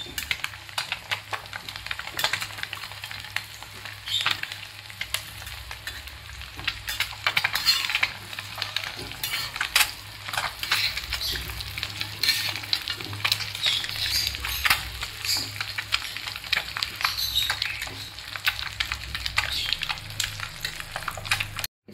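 Cut boiled eggs sizzling in oil and butter on a tawa, with a spatula scraping and tapping on the pan as the pieces are turned. A steady sizzle runs throughout with frequent sharp clicks.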